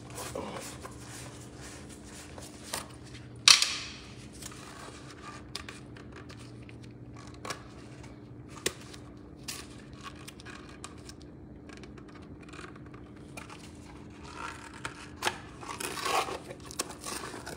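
Scattered kitchen handling noises: light clicks, knocks and rustles, with one sharp clack about three and a half seconds in and a busier stretch near the end, over a steady low hum.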